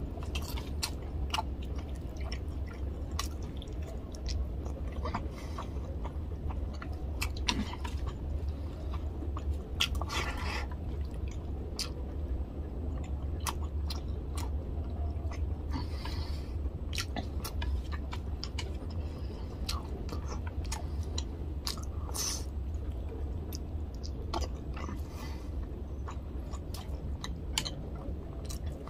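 Close-miked chewing and wet mouth sounds of someone eating rice with tilapia fish curry by hand, with frequent small clicks and smacks and the squish of fingers working rice into gravy. A steady low hum runs underneath.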